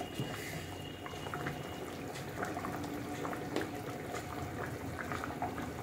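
Chicken curry gravy bubbling at a steady simmer in a pan on a gas stove, with small pops and ticks scattered through.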